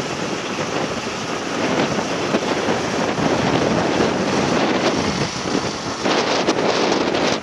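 Strong wind blowing across and buffeting the microphone, a loud, continuous rushing noise with harsher gusts near the end.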